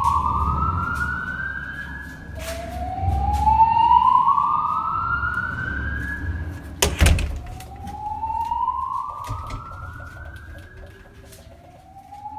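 Building fire-alarm evacuation siren sounding slow rising whoops, one about every four seconds, over a low rumble. A single loud bang cuts in about seven seconds in.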